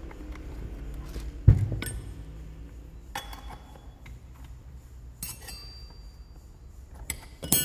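Metal tools and parts clinking and knocking while a Stihl FS 220 brushcutter's flywheel is worked off with a puller. One loud knock comes about a second and a half in, followed by several short, ringing metallic clinks.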